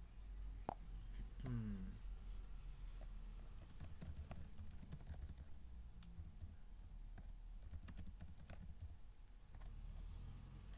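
Typing on a computer keyboard: a quick, irregular run of key clicks, entering login details, after a single click a little under a second in. A brief sound falling in pitch comes just before two seconds, over a steady low hum.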